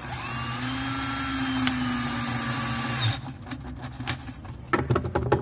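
Cordless drill-driver running under load for about three seconds as it drives a screw into a drawer front, a steady whine that winds down as it stops. A sharp click follows about a second later.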